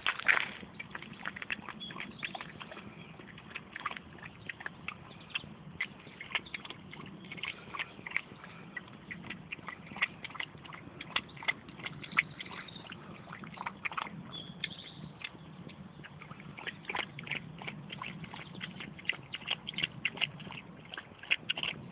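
A West Highland terrier and ducks drinking at water: a steady run of irregular wet lapping and dabbling clicks with small splashes.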